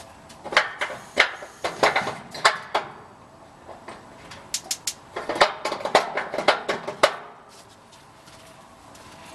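Sharp clicks in two bursts of about two seconds each, from a gas grill's front burner control and igniter being worked to turn the burner on.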